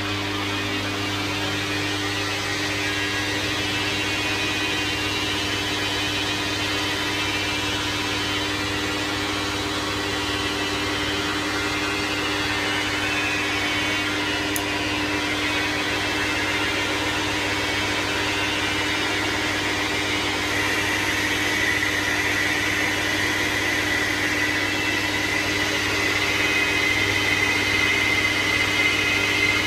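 Manual metal lathe running steadily while a tool turns a billet aluminium part, with a constant motor and gear hum. About two-thirds of the way in, a steady high whine joins as the tool cuts.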